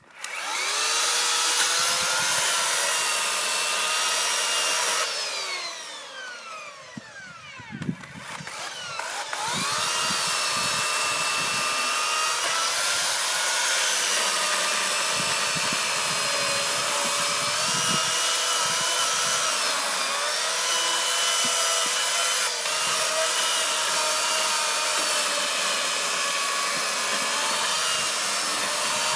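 A 2200-watt electric chainsaw's motor whines as it runs and cuts firewood logs. About five seconds in, it is released and winds down with a falling whine. Around nine seconds it speeds back up and runs steadily to the end, dipping in pitch now and then as the chain bites into the wood.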